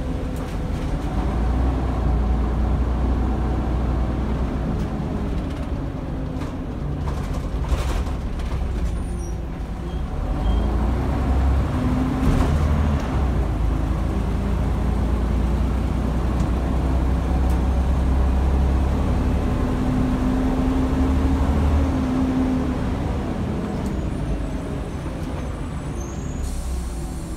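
The Scania DC9 five-cylinder diesel of a Scania N94UD double-decker bus, heard from the upper deck while under way. The engine note rises and falls as the bus pulls along, eases off about ten seconds in and then builds again. An air hiss starts just before the end.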